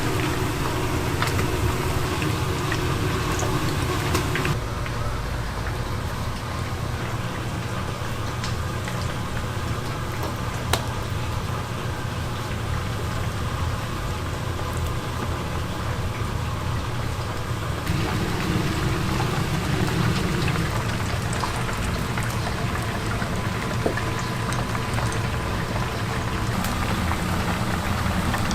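Chicken pieces sizzling and crackling in hot oil as they deep-fry, over a steady low hum, with the sound changing abruptly twice.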